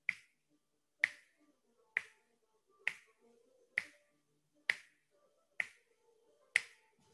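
Finger snaps at a steady pace of about one a second, eight in a row, with quiet between them.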